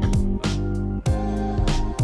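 Background music with a steady beat: a deep kick drum about twice a second under sustained bass and chord notes.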